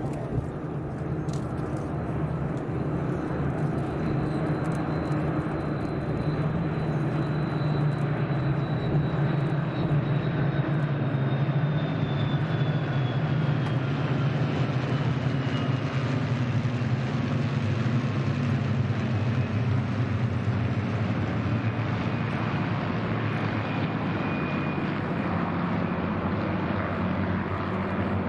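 Many Spitfire fighters' V12 piston engines droning together as a large formation flies past. The drone grows louder toward the middle and eases slightly near the end. A faint high tone falls slowly in pitch.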